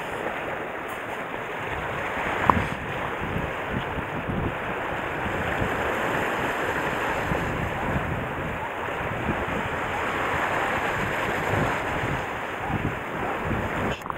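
Sea waves washing against a rocky shore, with wind on the microphone, a steady rushing noise. A single short click about two and a half seconds in.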